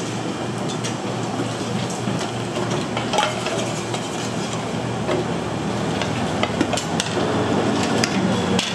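Metal ladle and perforated strainer clinking and scraping against steel pots and a porcelain plate, in scattered sharp clinks over a steady background hiss and hum.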